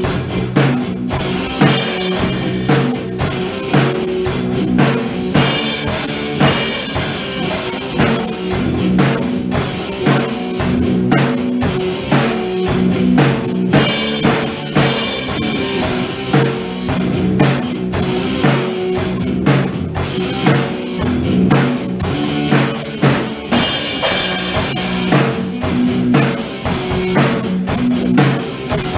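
Background rock music played on a drum kit and guitar, with a steady beat.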